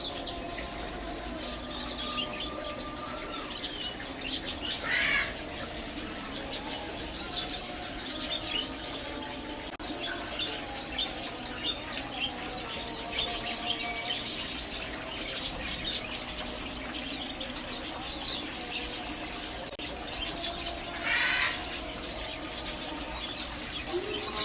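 Small cage finches chirping continuously, with many short, quick calls overlapping throughout and a couple of louder calls standing out.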